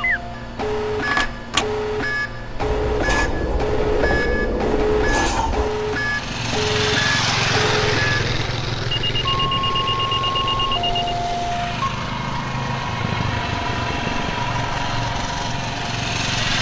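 Layered sound effects over a steady low machine rumble. A repeating pattern of alternating low and high beeps runs through the first half, with a few sharp knocks in the first couple of seconds. A rushing whoosh swells in the middle and again near the end, and a few held electronic tones sound in the second half.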